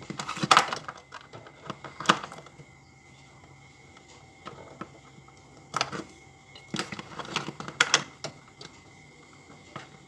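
Hands working among the wiring and plastic fittings behind a refrigerator's freezer panel, near the defrost thermostat and thermal fuse: scattered clicks and knocks, loudest about half a second in, at about two seconds and between about six and eight seconds.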